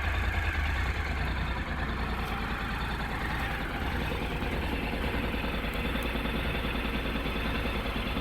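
Honda NC700S's 670 cc parallel-twin engine idling steadily through its stock exhaust.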